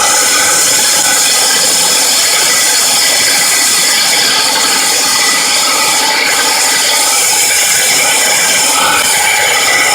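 Electric drill driving a diamond hole saw, grinding steadily into porcelain tile without a break.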